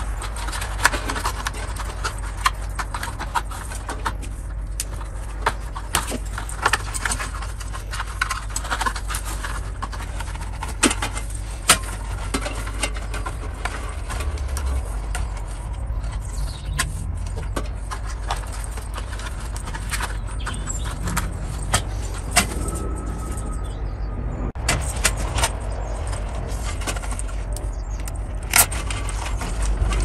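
Handling noise: alarm cables rustling and clicking against plastic trunking and the panel's plastic housing as they are sorted and fed to the terminals, many small irregular taps and clicks over a steady low rumble.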